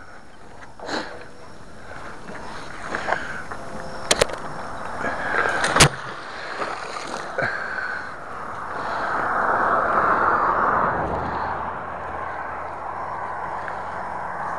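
Close handling noise from magnet-fishing gear: rustling and rubbing right at the microphone, with a few sharp clicks, a quick double about four seconds in and a loud one about six seconds in, then a longer rushing rub around ten seconds in.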